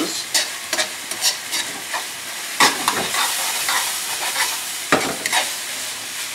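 Ground chicken sizzling in a stainless steel frying pan on a gas burner, with a metal spoon scraping and clacking irregularly against the pan as the mixture is stirred.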